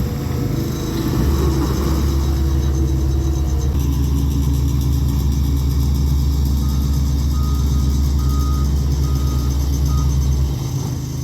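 Diesel engine of a Cat 308 mini excavator running steadily under load, easing off near the end. A backup alarm beeps several times in the second half.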